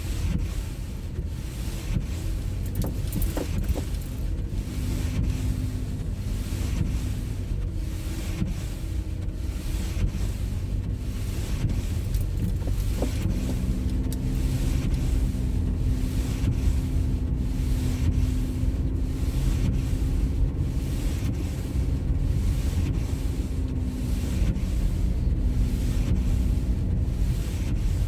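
Car driving on a snowy road: a steady low rumble of tyres and engine, with a faint engine hum that holds steady through the middle and later part.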